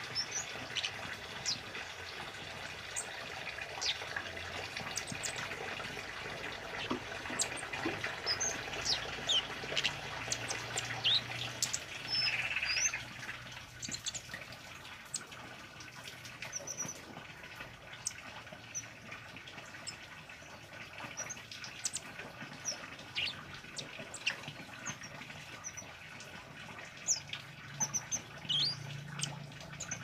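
Caged kemade (a flowerpecker) calling busily: a rapid, irregular scatter of short, sharp, high chirps and ticks, with a denser flurry near the middle, over a steady background hiss.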